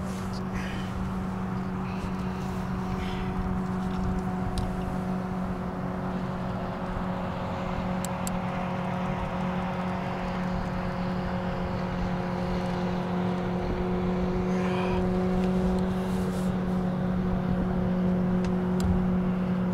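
Boat motor running steadily at a constant low pitch, over a continuous rush of wind and water.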